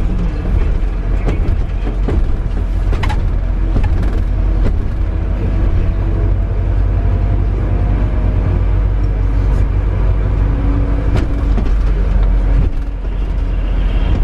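Airport apron bus driving, heard from inside the cabin: a deep, steady engine and road rumble, with a few sharp clicks and knocks from the bus body. The rumble eases slightly near the end.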